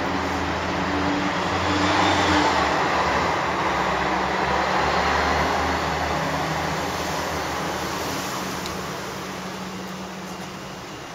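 Motor vehicle engine running nearby with street noise, a low hum that swells to its loudest a couple of seconds in and then slowly fades away.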